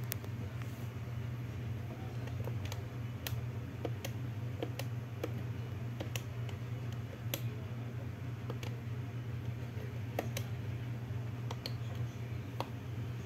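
Plastic keypad buttons on a Huawei ETS3125i desk phone clicking under a thumb, short irregular presses about one or two a second, over a steady low hum.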